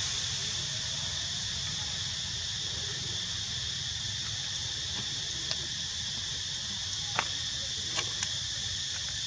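Steady high-pitched insect chorus, with a low rumble beneath it and a few short sharp clicks in the second half.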